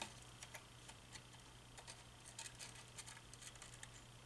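Near silence: faint, irregular small clicks as a wire is held to a switch contact and soldered, over a low steady hum.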